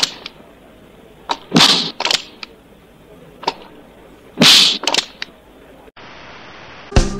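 A run of about nine sharp, loud cracks from a Western film's soundtrack, coming in irregular groups, the loudest about one and a half and four and a half seconds in. They are followed by a short faint hiss, and music comes in at the very end.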